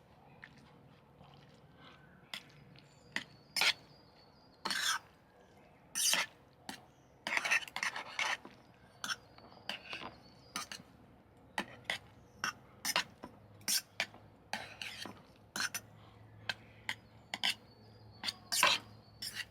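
Cutlery and dishes clinking and scraping in short, irregular bursts, a second or so apart, some drawn out into brief scrapes.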